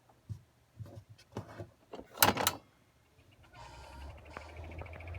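A few clicks and a louder clatter, then the Takasu Sangyo FTD-25ST ventilation fan starts up about three and a half seconds in: its motor hum builds and a steady high whine comes in with it. This is the abnormal noise that the brand-new fan made as soon as it was switched on.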